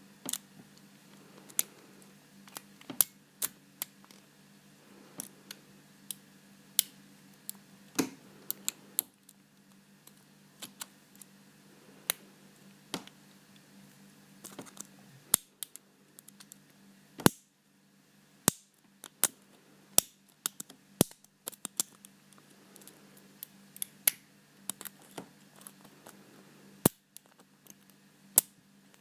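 Irregular small sharp clicks and ticks of a lock pick and tension wrench working the pin tumblers of a Paclock PL410PRO seven-pin padlock, with a faint steady low hum underneath.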